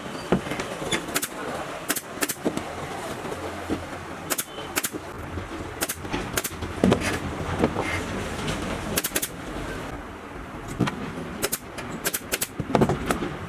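Upholstery staple gun firing an irregular series of sharp clicks, about one or two a second with some in quick pairs and triplets, fastening leather cover to an office chair frame.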